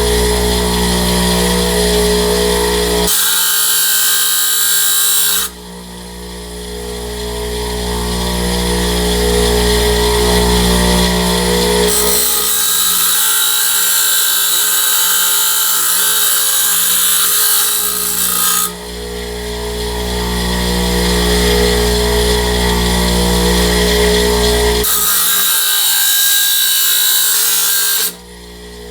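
Bench grinder fitted with a thin abrasive cutoff wheel, its motor humming steadily. Three times the wheel cuts into metal with a harsh, hissing grind: once briefly, once for about six seconds, and once for about three seconds near the end.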